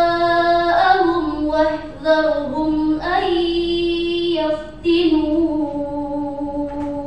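A teenage girl reciting the Quran in the measured murattal style, holding long, steady notes in a string of phrases with short breaths between them. The last phrase ends at the very end.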